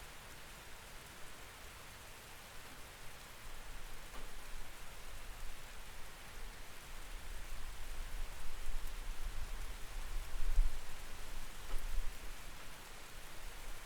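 Rain heard through a window: a steady patter, with a low rumble that swells from a few seconds in and is loudest about ten seconds in.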